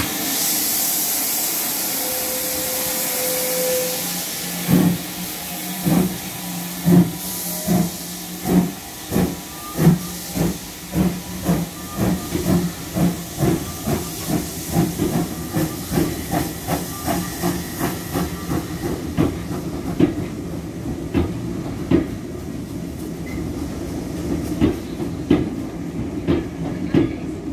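GWR 1500-class pannier tank steam locomotive starting a train: a loud hiss of steam for the first few seconds, then exhaust beats that begin about one a second and steadily quicken as it gets away. Near the end the beats grow fainter and the coaches' wheels click past.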